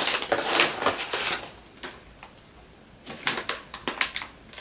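Plastic and foil dog-treat packaging crinkling as it is handled. A dense crackle fills the first second and a half, and a short cluster of sharp crinkles follows about three seconds in.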